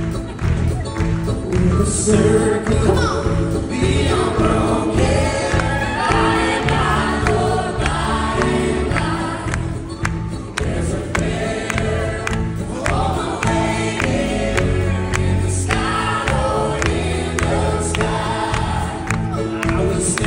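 Live country band with electric and acoustic guitars and a steady beat, backing several singers who sing together on stage.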